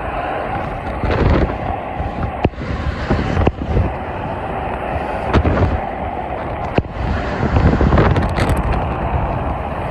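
Heavy highway traffic, with tractor-trailers and cars passing in a steady wash of engine and tyre noise that swells into a low rumble twice as vehicles go by. Three sharp clicks cut through it.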